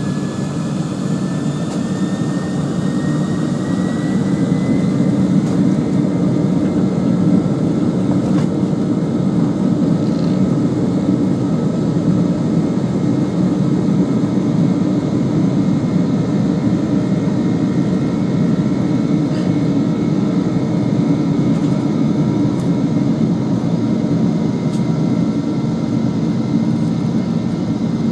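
McDonnell Douglas MD-11's Pratt & Whitney turbofans at takeoff thrust, heard from the cabin beside the wing engine during the takeoff roll. An engine whine rises in pitch over the first few seconds as the engines spool up, then holds steady over a loud rumble.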